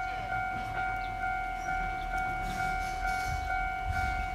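Railway level-crossing warning bell ringing steadily, an electronic ding repeating about twice a second, the signal that a train is approaching with the barriers down. A low rumble rises near the end.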